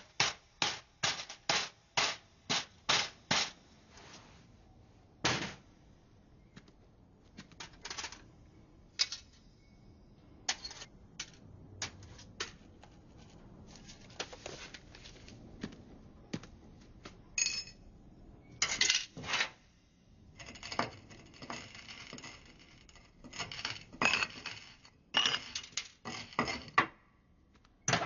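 Sharp clicks, knocks and clattering of glass and metal lab equipment being handled during a meth cook. A quick run of about a dozen clicks comes first, then scattered knocks, and a longer stretch of busier clattering near the end.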